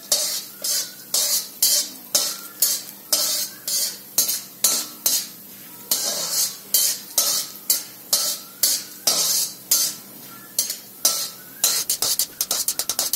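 A perforated metal ladle scraping and stirring chana dal around a kadhai, about two strokes a second, quickening into a rapid flurry of short strokes near the end. Underneath, a little oil sizzles faintly as the dal roasts on a low flame.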